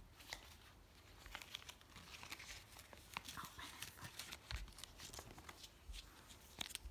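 Faint crinkling and rustling of a red paper envelope (hongbao), with many small scattered crackles, as a cat paws and tugs at it.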